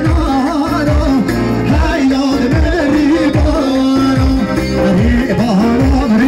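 Middle Eastern folk music: a winding, ornamented melody over a steady, regular drum beat.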